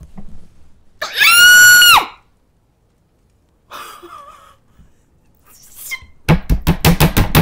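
A woman's very loud, high-pitched scream of excitement, held steady for about a second. Near the end come quick hand claps, about six a second.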